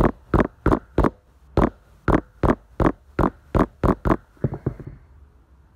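The back of a plastic slicker brush banging the nose piece into a plastic model dog head: a dozen sharp knocks about three a second, ending with a quick flurry of lighter taps about four and a half seconds in.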